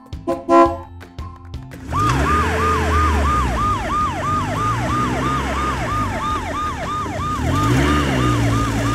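Police-car siren sound accompanying a toy police car: a quick falling wail repeating about three times a second, starting about two seconds in over a low steady hum. Before it, a few light clicks and a short pitched blip, the loudest moment, about half a second in.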